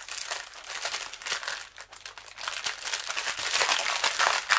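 Small plastic bags of diamond-painting drills crinkling and rustling as they are handled and shuffled, busier toward the end.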